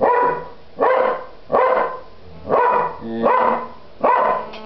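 A dog barking repeatedly, six short barks about one every 0.8 seconds.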